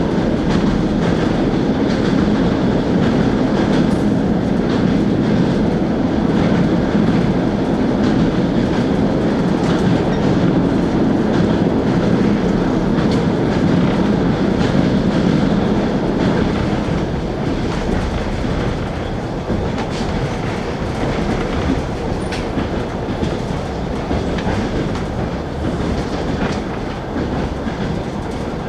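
Passenger train running along the line, heard from inside a carriage: a steady rumble with the wheels knocking over the rail joints, occasional sharp clicks standing out. It gets a little quieter a little over halfway through.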